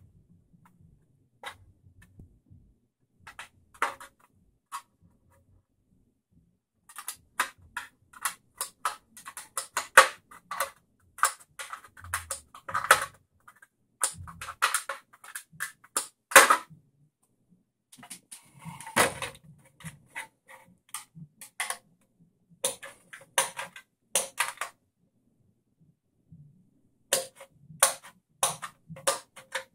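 Scissors snipping the clear polycarbonate shell of a Tamiya F104 RC car body, in runs of quick, sharp snips with short pauses between.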